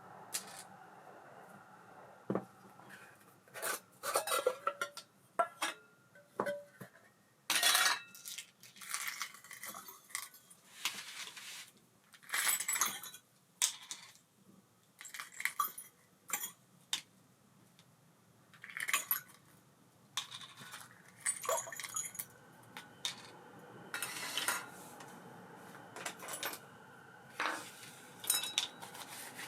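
Small metal parts of an Abu Garcia Ambassadeur 5500C baitcasting reel and the tools working on them clinking and clicking irregularly, with a few short scrapes.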